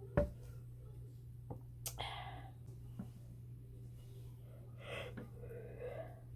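A person breathing out heavily twice, sigh-like, with a dull thump just after the start and a short sharp click a little before the first breath.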